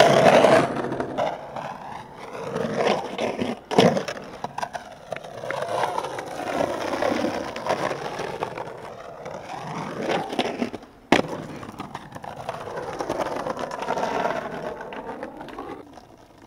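Skateboard wheels rolling over rough, gritty concrete, swelling and fading as the board passes by several times. Two sharp knocks of the board, about four seconds in and again about eleven seconds in.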